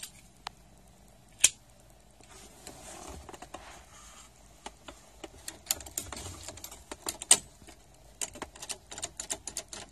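A car key and its fob clicking and rattling as it is worked into the ignition lock on the steering column: scattered sharp clicks with a run of small ticks, the loudest click about a second and a half in.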